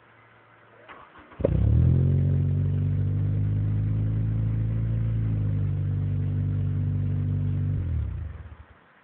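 Honda Civic engine heard at the tip of its Invidia G200 exhaust: after a brief crank it starts with a short flare, runs at a steady speed for about six seconds, then is shut off and dies away.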